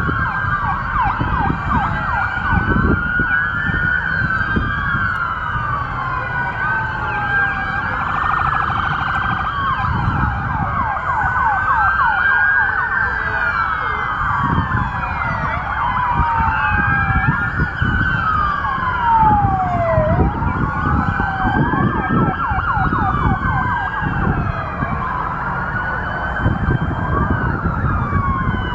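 Several police car sirens wailing at once, their rising and falling tones overlapping out of step, with one switching briefly to a fast yelp about eight seconds in. A low road-traffic rumble runs underneath.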